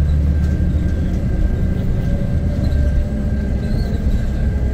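Steady low rumble of a running vehicle, with a faint steady high tone over it.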